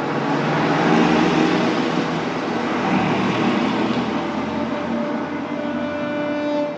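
Garbage truck running, a loud steady mechanical noise with engine tones; a steady pitched tone joins about five seconds in.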